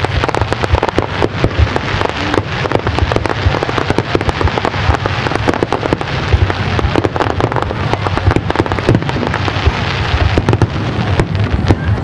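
Fireworks display: a dense, continuous crackling of many rapid small pops over a low rumble of bursting shells.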